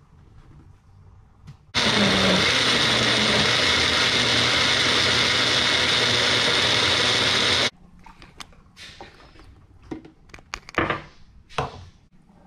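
Small single-serve blender running, puréeing tomatoes and broth into sauce: a loud steady motor whir that starts abruptly about two seconds in and cuts off sharply about six seconds later. Several clicks and knocks follow as the cup is handled.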